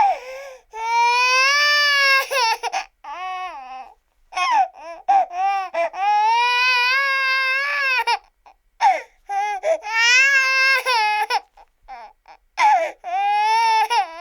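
Stock sound effect of a baby crying: several long, high-pitched wails, each separated by short choppy sobs and catches of breath.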